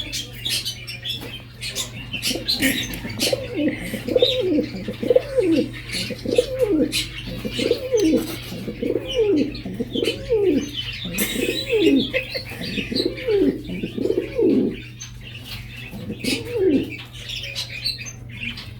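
A dove cooing: a run of about a dozen low swooping coos, one after another for some ten seconds, then one more near the end. Small birds chirp high above it, over a steady low hum.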